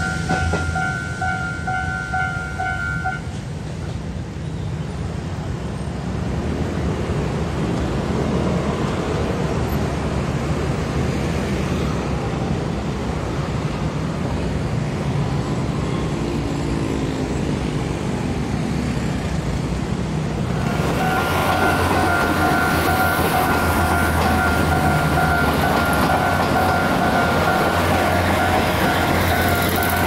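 A level-crossing warning bell rings as a diesel multiple unit finishes passing and stops about three seconds in. Scooters and cars then move off across the tracks. About twenty seconds in the warning bell starts again and a commuter electric multiple unit train runs through the crossing, louder to the end.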